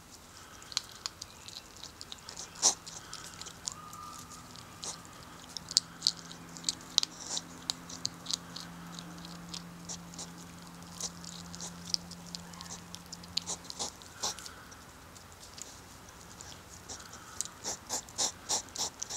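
European hedgehog crunching dry pellet food, a run of sharp, irregular clicks several times a second, with pauses between bouts. A faint steady low hum runs under it until past the middle.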